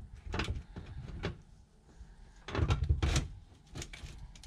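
Stainless-steel Duravent chimney pipe being worked onto the thru-the-wall tee by hand: metal scraping and clunking in short bursts, the loudest and longest near the middle.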